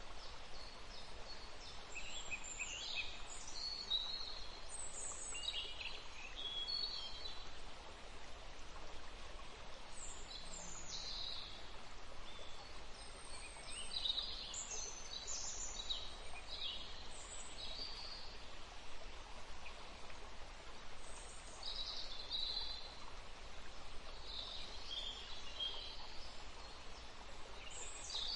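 Songbirds chirping and singing in short, high phrases scattered throughout, over a steady soft hiss.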